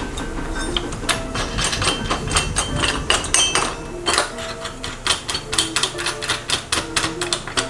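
Rapid, irregular metallic clicking and clinking from tightening nuts onto the bolts of a homemade steel sprocket-hub jig.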